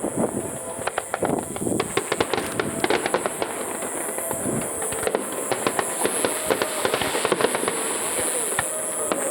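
Aerial fireworks crackling, with a dense run of rapid pops and sharp cracks throughout.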